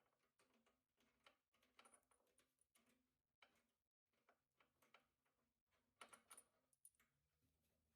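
Near silence, with faint scattered clicks and taps of hand tools removing the fuel tank bolts.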